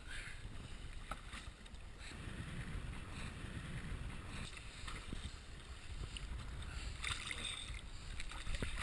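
Wind rumbling on an action camera's microphone over water slapping and sloshing against a small boat's hull, with a little louder splashing near the end.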